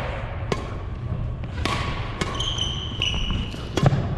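Badminton rally: sharp pops of rackets striking the shuttlecock, about once a second. A high squeak of court shoes on the wooden hall floor comes a little past halfway.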